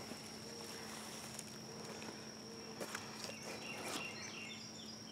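Outdoor ambience dominated by a steady, high-pitched insect trill. Two brief rustles come about three and four seconds in, and a bird chirps in short, repeated falling notes through the second half.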